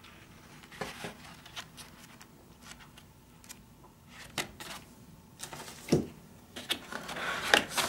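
Pages of a paperback instruction book being leafed through, giving scattered soft rustles and flicks. A thump comes about six seconds in, followed by cardboard rubbing and scraping as the kit box's inner tray is handled.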